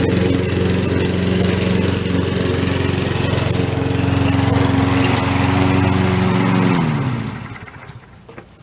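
Lawn mower engine running steadily, then shut off near the end, its pitch falling as it spins down to a stop.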